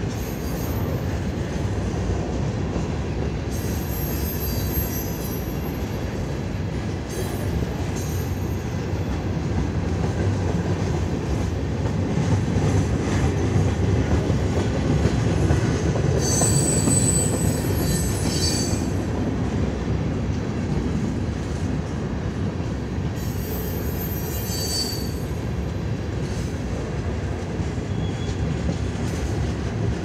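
Freight train cars rolling past with a steady low rumble of wheels on rail. High-pitched wheel squeals come and go four times, the strongest a little past halfway.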